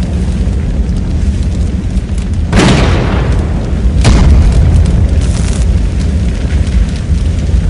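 Pop music track with a heavy, steady bass line and two crash-like noise hits, about two and a half and four seconds in.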